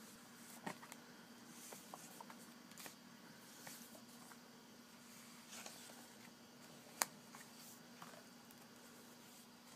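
Faint rustling and light taps of comic books being handled and swapped one after another, with one sharper click about seven seconds in, over a faint steady hum.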